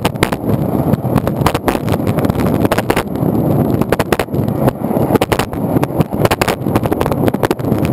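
Longboard wheels rolling over asphalt, heard from a camera mounted on the deck: a steady rough rumble with frequent sharp clacks.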